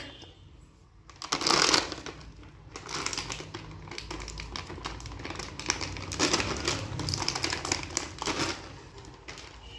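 A plastic Bingo! Mad Angles snack packet crinkling and crackling as it is pulled and torn open by hand, with a louder burst of rustling about a second and a half in.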